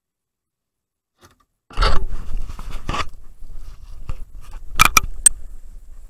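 Rustling and crunching of leaves and twigs from footsteps through brush and handling of the camera, starting suddenly about two seconds in, with a few sharp snaps or clicks toward the end.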